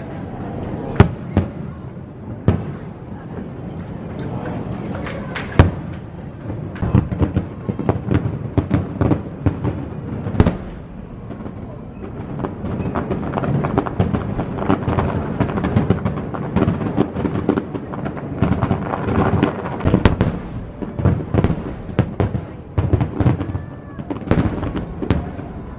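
Fireworks shells bursting. Single loud booms come about a second in, at about five and a half seconds and at about ten seconds, and rapid overlapping bangs and crackling fill the rest.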